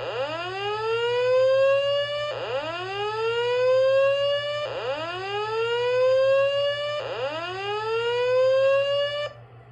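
System Sensor SPSR fire alarm speaker strobe sounding a whoop alert tone: four identical rising sweeps, each about two and a third seconds long. It is the alert tone played between repeats of the voice evacuation message.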